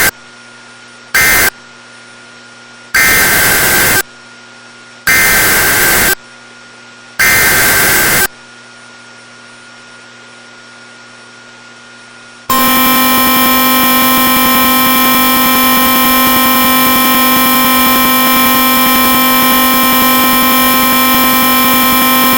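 Emergency Alert System SAME digital data bursts: a last short end-of-message burst about a second in, then three longer header bursts about a second each, opening the next alert, all buzzy screeching chirps. After a few seconds of faint hiss and hum, a loud steady buzzy attention tone sounds for about ten seconds.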